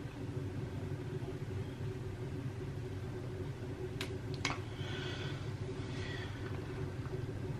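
Steady low rumble, with two sharp clicks about four seconds in.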